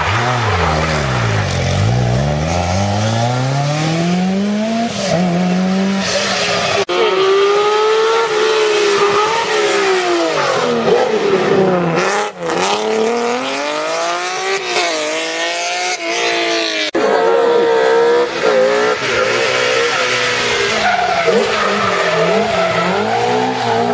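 Historic rally car engines revving hard as the cars pass, pitch climbing and dropping through gear changes and lifts, across several short cuts.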